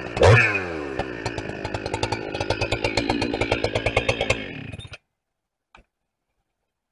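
Two-stroke chainsaw dropping off the throttle after high revs, with one short blip, then winding down and idling with a rapid, regular popping. The sound cuts off abruptly about five seconds in.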